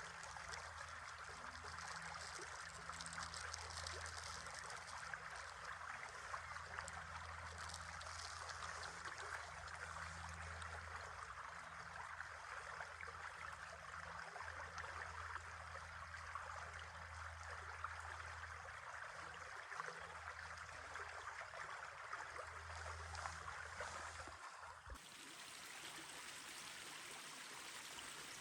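River water running steadily over rocks, an even rushing with a low rumble that comes and goes underneath. About 25 seconds in, the sound changes abruptly to a thinner, hissier stretch of water.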